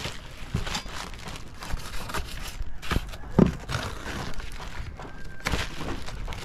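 Paper bags and a plastic bag rustling and crinkling in irregular crackles as dried fish is wrapped by hand, with a dull knock about three and a half seconds in.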